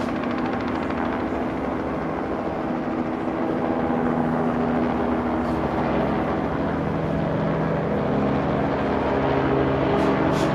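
Steady engine drone with several held tones, growing a little louder about four seconds in.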